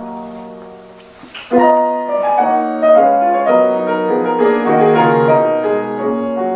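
Solo piano: a held chord dies away, then about a second and a half in a new passage of quick, flowing notes begins, the introduction to the song.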